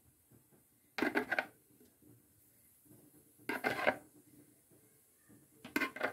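A spoon clinking and scraping against dishes in three short bursts about two seconds apart, as sauce is spooned over fish in a glass baking dish.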